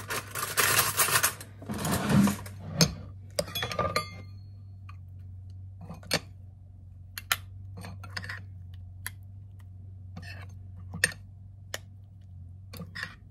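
A spoon scraping and tapping against a stainless steel measuring cup and a glass bowl as thick batter is scooped into the cup. There is dense scraping for the first couple of seconds, then scattered light clicks and taps, with a low steady hum underneath.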